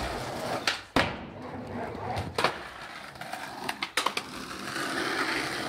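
Skateboard wheels rolling on concrete and paving, with sharp clacks of the board hitting the ground during tricks: one about a second in, one midway, and a cluster near four seconds in.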